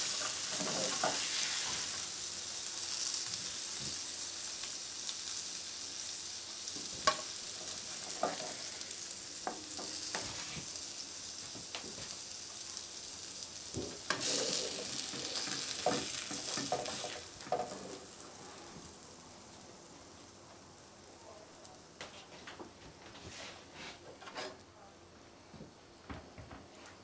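Burgers sizzling in a frying pan, with a spatula now and then scraping and knocking against the pan. The sizzle swells again briefly about halfway through, then slowly dies away as the pan cools with the hob turned off.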